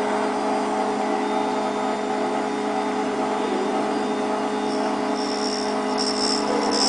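PPU2 universal cutter grinder running with a steady motor hum. About five seconds in, a high, thin ringing whine joins and grows louder as the grinding wheel begins to touch the milling cutter.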